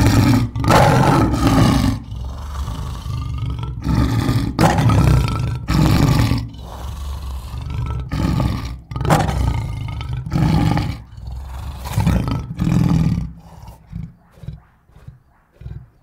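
Lion roaring: a bout of loud, deep roars, each lasting up to about a second with quieter moans between them. It trails off after about 13 seconds into a string of short grunts that grow fainter and come closer together.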